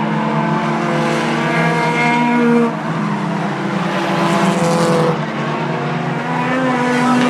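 Several four-cylinder race cars running hard at once on a short oval, their engine notes overlapping and shifting in pitch as they race past.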